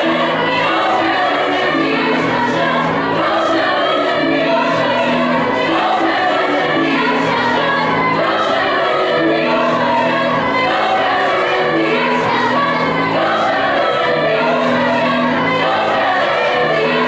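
Girls' choir singing in several parts, holding long sustained chords.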